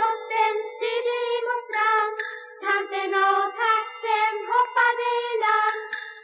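Children's voices singing a melody together in short syllables, with little or no low instrumental accompaniment.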